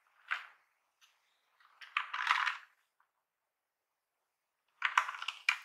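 Plastic keyboard case handled by gloved hands: rubbing with light clicks and knocks in three short bursts, a brief one near the start, a longer one about two seconds in, and another near the end.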